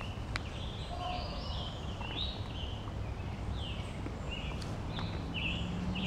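Wild birds singing, a string of short chirps and warbles, over a steady low background noise, with one sharp click about half a second in.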